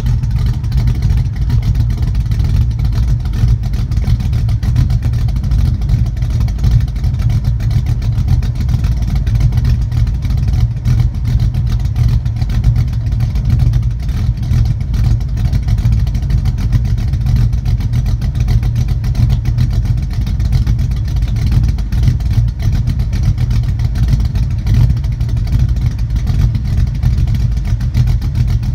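1969 Ford Mustang Mach 1's 351 Windsor V8, stroked to 408 cubic inches, idling steadily through a 3-inch stainless-steel Magnaflow exhaust, heard at the twin tailpipes. The note stays low and even, with no revving.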